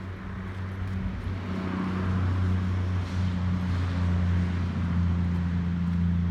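A car driving, with a steady low engine hum and road noise that grow a little louder about two seconds in.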